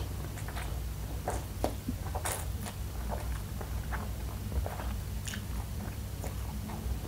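Close-miked eating of noodles: strands sucked in off a fork and chewed, with irregular wet smacking clicks and a longer slurp a little past two seconds. A steady low hum runs underneath.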